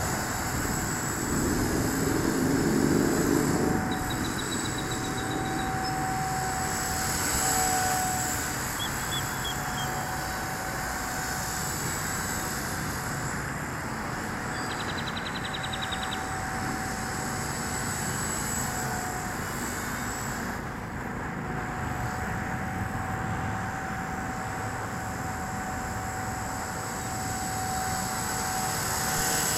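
Blade 180 CFX electric RC helicopter in flight: a steady high whine from its motor and rotors that swells and eases in loudness.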